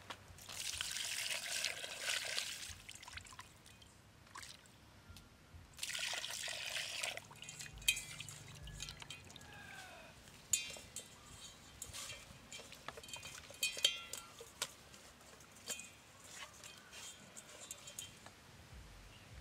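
Water pours into a steel bowl twice, each time for a second or two, then comes a run of wet squelches, clicks and drips as a whole black-skinned chicken is rubbed and washed by hand in the bowl.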